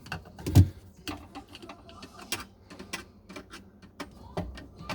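Screwdriver clicking and knocking against the metal mounting screws and ring of a garbage disposal's sink mount, in an irregular run of small clicks with one loud knock about half a second in.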